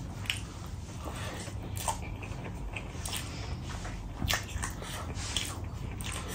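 A person eating rice and curry by hand: wet chewing and lip smacks, with scattered short mouth clicks.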